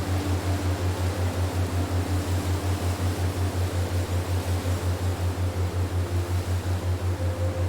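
Relaxation soundtrack: a deep hum pulsing evenly about four to five times a second, under faint held tones and a soft steady hiss.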